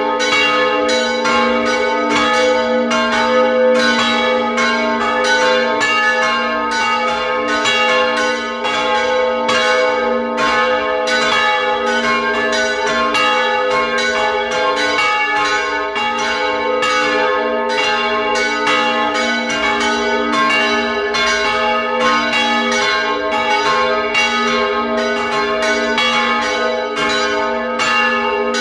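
Full peal of three swinging church bells, cast by the Fischer brothers of Trnava and tuned G♯, C and F♯, ringing together. Their clapper strikes overlap in a continuous loud stream of ringing tones, heard close up inside the belfry.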